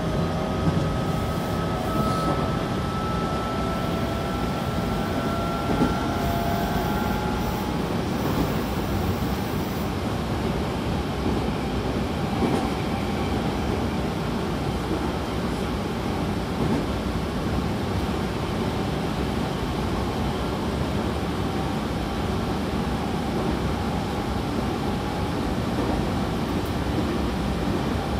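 Tobu 20400 series electric train running, heard inside the passenger car: the Toyo Denki GTO VVVF inverter and traction motors give a slowly rising whine that fades out about seven seconds in. After that only the steady rumble of wheels on rail is left.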